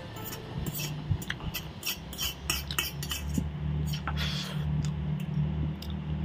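Metal cutlery clicking and scraping against a metal plate as the last ramen noodles are scooped up and eaten, with brief slurps between the clicks.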